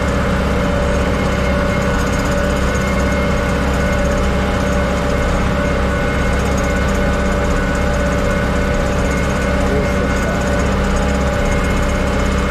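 Tractor engine running steadily under load while pulling a Tolmet Thor subsoiler through stubble, the engine tone holding constant with no change in revs.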